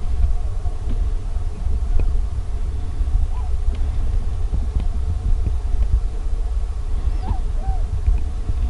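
Scattered distant honking calls from a large flock of long-necked migrating birds flying overhead in long lines, over a steady low wind rumble on the microphone.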